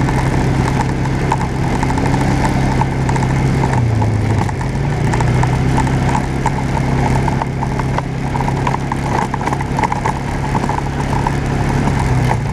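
Off-road vehicle engine running steadily as it drives along a gravel trail, its pitch dipping briefly about four seconds in, with light rattling clicks over the engine.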